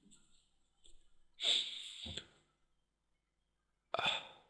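A person sniffing or breathing in sharply through the nose close to a microphone, twice, with near silence between.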